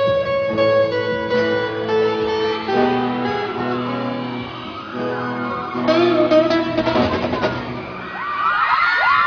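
Guitar-led music playing, with held notes changing every half second or so. Near the end, a crowd of fans starts screaming and whooping over it.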